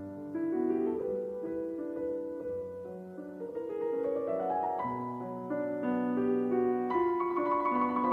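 Piano music playing a slow melody over chords, with a phrase climbing in pitch about halfway through.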